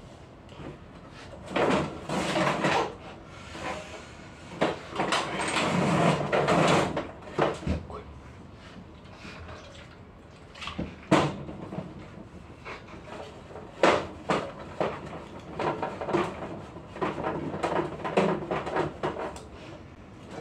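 Plastic and metal parts of a Lavazza Espresso Point EP 2100 espresso machine being handled and wiped during cleaning: irregular clunks and knocks with stretches of scraping and rustling. The sharpest knocks come about 11 and 14 seconds in.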